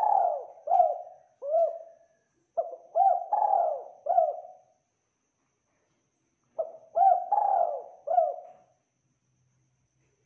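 Spotted dove cooing in phrases of four or five short coos, about two seconds long, with pauses between them: one phrase ends in the first couple of seconds and two more follow.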